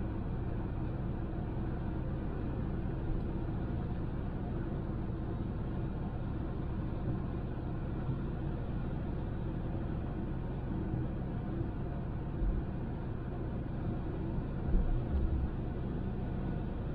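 Honda Civic on the road: a steady low rumble of tyre and engine noise, with a few low thumps in the latter part, the loudest near the end.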